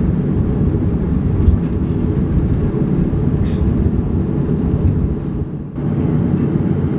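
Boeing 737-300 with its engines running at idle on the ground, heard from inside the cabin as a steady low rumble that drops briefly about five and a half seconds in.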